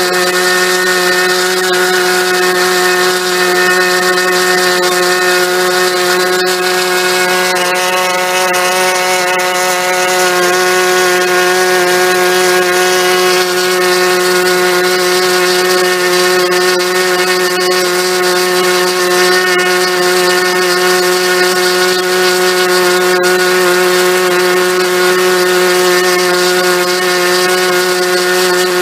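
O.S. 49-PI single-rotor Wankel model engine, the later type with peripheral intake and exhaust ports, running at a steady high speed and turning a propeller. A loud, even buzz holding one pitch.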